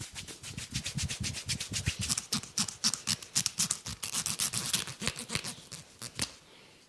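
Comb scratching briskly over a scalp and hair in fast, even strokes, several a second with a dull thud under many of them, stopping abruptly about six seconds in.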